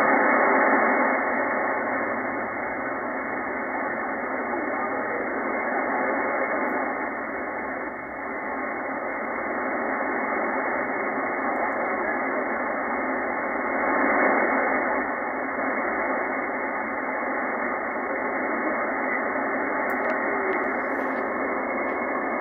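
Receiver audio from a FlexRadio software-defined radio on 20-metre upper sideband: a steady hiss of band noise squeezed into a narrow voice passband, with a weak station's voice buried in it. The hiss drops a little about two seconds in as the AGC threshold is lowered from 47 to 40.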